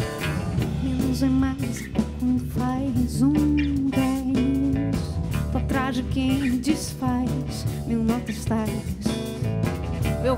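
Live band music: a woman singing over electric guitar and drums.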